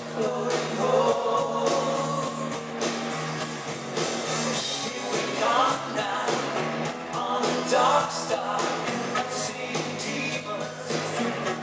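Live pop-rock band playing with sung vocals over a steady drum beat.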